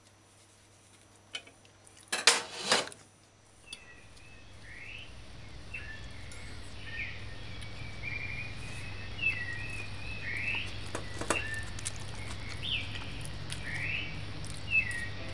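A fork and knife clink and scrape against a plate about two seconds in. Then a background rises slowly, with short high chirps repeating about once a second.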